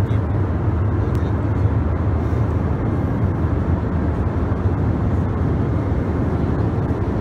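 Steady cabin noise inside an Airbus A321 in flight: the low, even roar of the engines and airflow past the fuselage.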